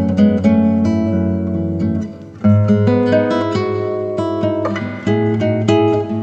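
Background music played on acoustic guitar, plucked and strummed chords, with a short dip in loudness about two seconds in.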